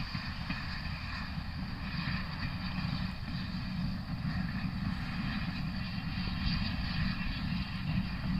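Steam locomotive Holly Bank No.3 running, a steady low rumble with hiss and no distinct chuffs, mixed with wind on the microphone.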